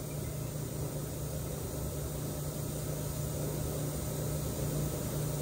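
Steady low machine hum with a hiss. There are no distinct knocks or clicks.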